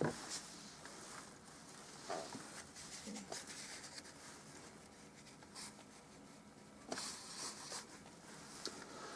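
Faint rubbing of a folded paper towel wiped across wet oil paint on a stretched canvas, lifting paint off to make lighter areas, in a few separate strokes.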